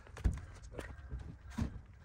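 A few scattered light knocks and taps, the loudest about a quarter-second in.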